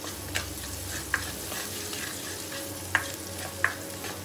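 Chopped garlic sizzling in hot oil in a pan as it is sautéed, stirred with a spatula that clicks sharply against the pan a few times.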